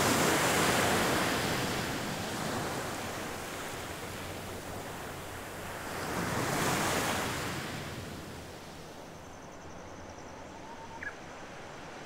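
Surf breaking on a beach, swelling twice about six seconds apart with the sea's rushing wash between. Near the end it gives way to quieter open-air sound with a faint high pulsing buzz and one brief chirp.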